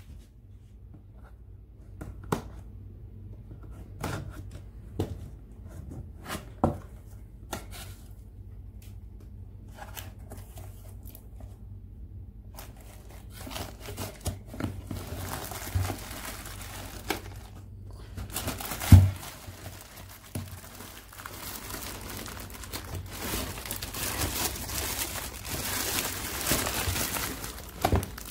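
Cardboard box being opened and handled, with scattered knocks and scrapes, then clear plastic wrapping around a heat-sealer machine rustling and crinkling continuously as the machine is lifted out. One sharp thump about two-thirds of the way through.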